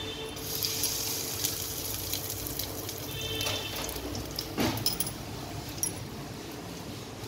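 Hot oil in a kadai sizzling and crackling as asafoetida (hing) is dropped in for the tadka (tempering).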